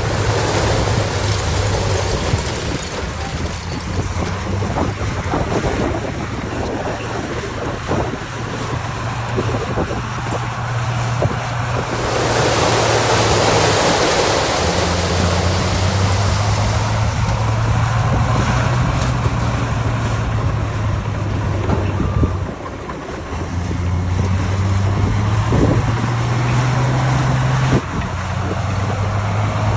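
Diesel engines of heavy earthmoving machinery running, their pitch stepping up and down as they work. About twelve seconds in, a broad rushing noise swells for several seconds over the engines.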